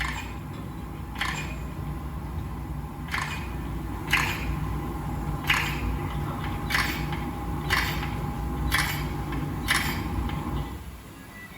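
About nine short, sharp clicks at uneven intervals of roughly a second, over a steady low hum of room noise.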